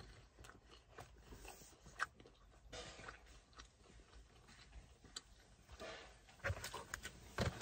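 Faint close-up chewing of a crisp thin-crust pizza melt: soft crunches and mouth clicks scattered through, with a few louder thumps near the end.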